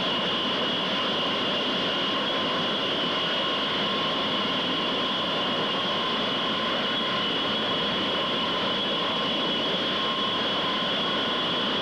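Jet engines running on an airfield flight line: a steady, unbroken roar with a high, even whine over it.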